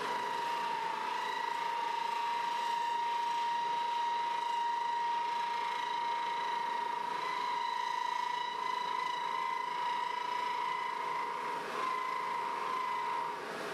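Wood lathe running with a steady high-pitched whine as a cast resin top blank spins, the whine breaking briefly near the end and then stopping.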